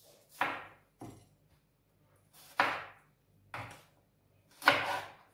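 Kitchen knife cutting a green bell pepper into large pieces on a cutting board: five unevenly spaced cuts, each a sharp knock of the blade on the board, the last the loudest.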